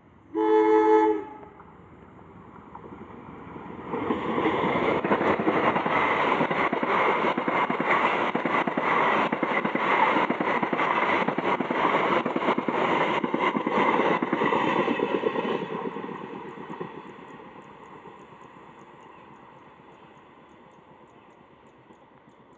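A train's horn sounds one short blast, then the train passes close by with a steady rhythmic clatter of wheels over the rail joints, loud for about twelve seconds before fading away.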